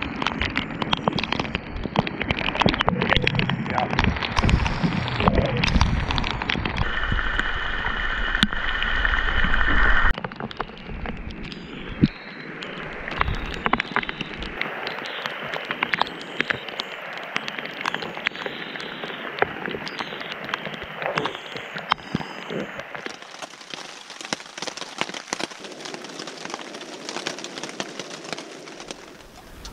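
Heavy rain pattering, with a dense run of individual drop ticks. The sound changes abruptly several times. A steady high-pitched tone is heard for a few seconds, starting about seven seconds in.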